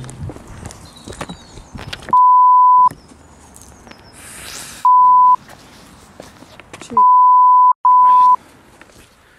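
Censor bleeps: a steady 1 kHz tone sounded four times, the first and third about three-quarters of a second long, the others about half a second, each blanking out the soundtrack beneath it. Between them there is quieter scuffling and knocking from the camera being handled.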